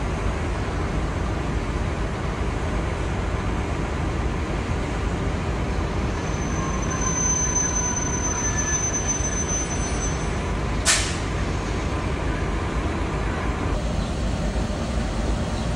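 National Rail NR class diesel-electric locomotive, with its GE V16 diesel, idling with a steady low rumble. A thin high whine runs for a few seconds in the middle, and a single sharp click or hiss comes about eleven seconds in.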